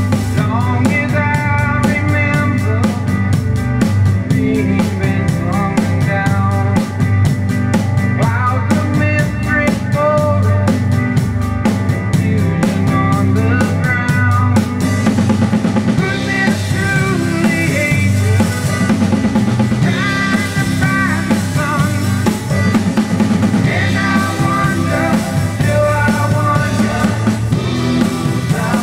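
Acoustic drum kit played with sticks, kick, snare, toms and cymbals, along with a rock recording whose guitars and voice run under the drums. A fast, even high-end ticking stops about halfway through.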